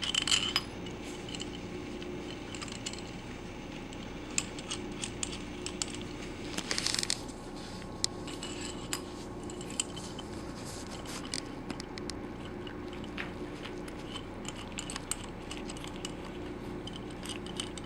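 Light metal clicks and clinks as screws are threaded finger tight by hand into a vacuum pump's piston cylinder assembly, over a steady room hum. A brief rustle about seven seconds in.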